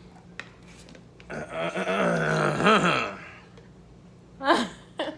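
A person's voice making a drawn-out, wavering vocal sound about a second in that lasts nearly two seconds, then a short drop-pitched vocal sound near the end.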